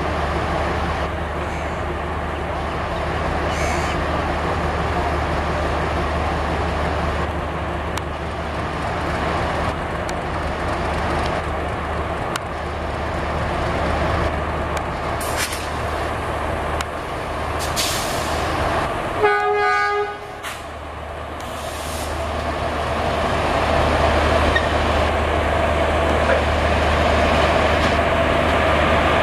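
WAP-4 electric locomotive hauling a passenger train slowly past, a steady rumble and low hum of the engine and wheels. About two-thirds of the way through, the locomotive's horn gives one short toot of about a second.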